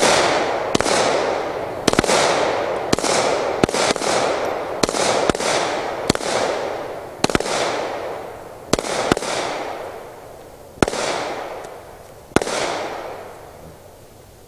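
Two handguns fired together in a string of about sixteen shots at uneven intervals, each shot followed by a long fading echo. The firing stops about two seconds before the end.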